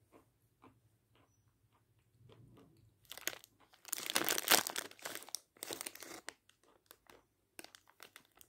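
Red plastic packet crinkling loudly for about three seconds, starting about three seconds in, as a chunk of edible chalk is taken out of it. Faint clicks of chalk being chewed come before and after.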